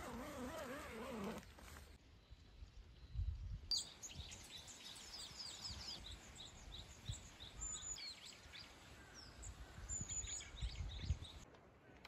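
Small songbirds chirping and singing in quick, repeated high notes, starting a few seconds in and stopping just before the end, with a few low thumps on the microphone.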